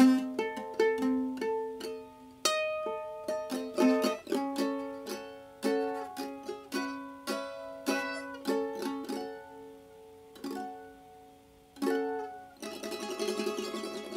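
Instrumental music of plucked notes, each struck sharply and left to ring out, one after another in a slow melody; near the end it turns to a fast tremolo.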